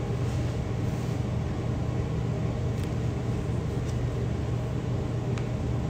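Steady low hum with an even hiss over it: background room noise, broken only by two faint clicks, about three seconds in and near the end.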